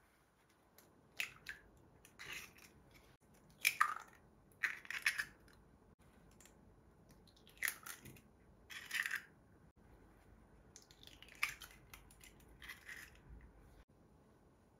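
Raw eggs being cracked and their shells pulled apart by hand over a glass bowl, one egg after another: four clusters of short, sharp crackles.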